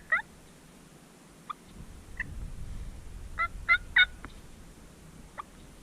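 Wild turkey calls: scattered short yelps and clucks, with a quick run of three louder yelps about three and a half seconds in.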